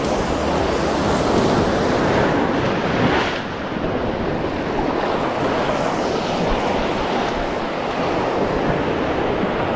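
Sea surf breaking and washing over shoreline rocks in a steady rush, with a louder surge about three seconds in, and wind buffeting the microphone.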